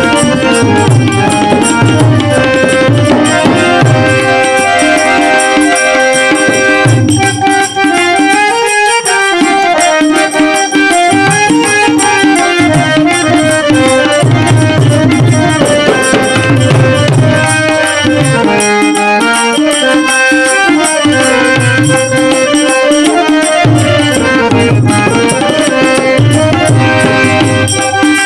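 Instrumental interlude of a devotional dhun: a harmonium plays the melody over a steady hand-drum beat, with no singing.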